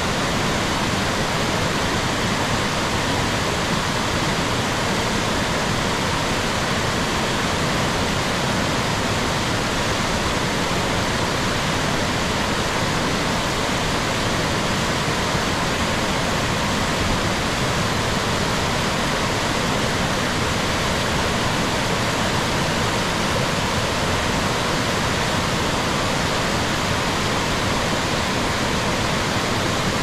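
A waterfall rushing: a steady, unbroken wash of falling water that does not change.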